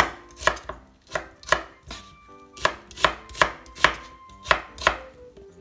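Chef's knife slicing an onion on a bamboo cutting board: a series of sharp knocks of the blade on the wood, about two or three a second, with a short pause about two seconds in.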